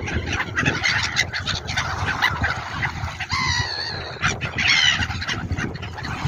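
Gulls calling: two drawn-out, wavering cries about halfway through, over a steady rushing noise.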